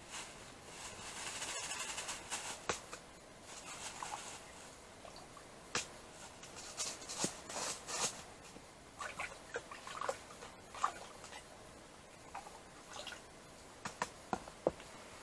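Handling noises from ice-fishing gear: a brief rustle near the start, then scattered clicks, taps and small squeaks as small ice rods and a plastic bait box are handled on the foam floor mat.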